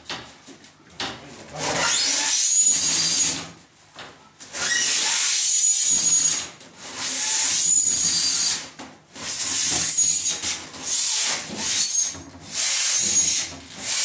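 A large empty glass aquarium, 8.5 ft long, scraping across the boards on top of its wooden cabinet stand as it is shoved into place, in about six pushes of a second or two each.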